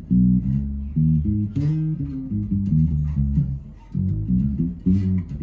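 Fender Precision Bass played fingerstyle, a line of separate plucked notes. The tone is set to cut the highs, so it sounds dark and bottom-heavy.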